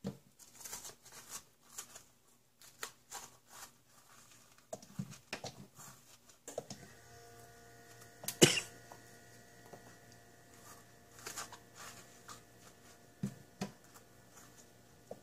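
Thumb scraping the seeds and spongy pith out of a halved bitter melon: soft, scattered crackles and clicks as the pith tears away and bits drop into a stainless steel sink, with one sharp louder snap about halfway through.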